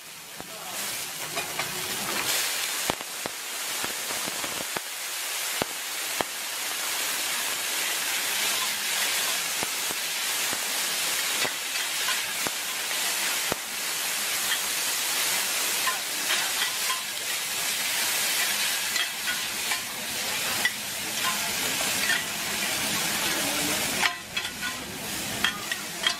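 Bean sprouts and egg sizzling on a large flat steel pan, with two metal spatulas scraping and clicking against the pan as they are tossed. A steady frying hiss runs throughout, broken by frequent short clicks.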